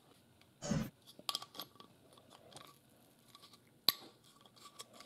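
Small clicks and scrapes of a hex driver working a set screw in a metal battery terminal block, with a short knock under a second in and one sharp click about four seconds in.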